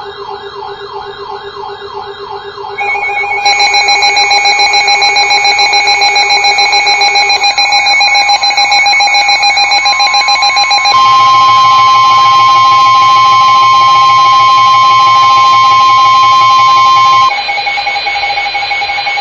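Loud electronic emergency alert tones layered on each other. A wavering siren is joined about three seconds in by several steady tones. Another high steady tone sounds from about eleven seconds in until about seventeen seconds in.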